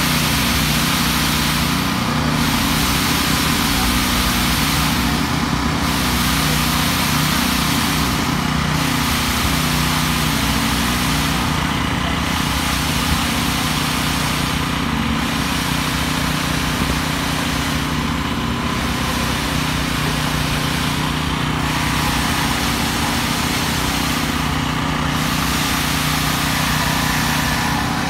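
Small petrol engines of concrete poker vibrators running steadily at high speed, with other site machinery of a concrete pour behind them. The hiss dips at regular intervals of about three seconds.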